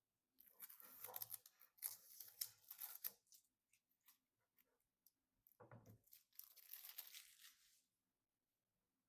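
Tearing and crinkling of plastic in two bouts, the first about three seconds long and the second about two and a half, as plastic film or packaging is pulled and handled.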